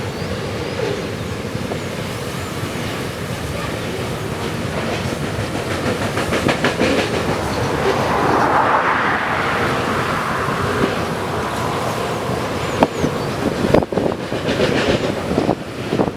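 Train rolling past on the track, its wheels clacking over the rail joints in a repeating rhythm.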